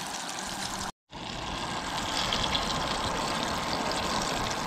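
Breaded fish frying in hot oil in a cast iron skillet: a steady sizzle with fine crackling. The sound cuts out for a split second about a second in, then carries on.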